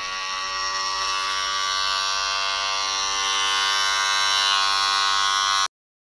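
Electric hair clippers buzzing steadily through a haircut, then cutting off suddenly near the end.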